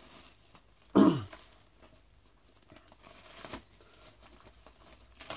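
Plastic shrink wrap being torn open and pulled off a vinyl LP sleeve, crinkling. The loudest tear comes about a second in, a smaller one just past halfway, and a short sharp snap near the end.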